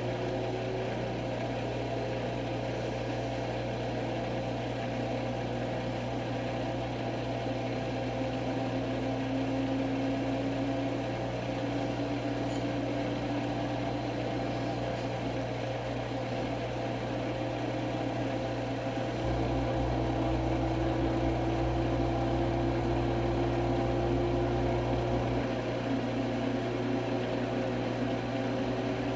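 Washing machine on a maximum-speed spin: a steady motor hum and drum whine, with a tone that slowly drifts in pitch. A low rumble grows louder for several seconds past the middle, then eases.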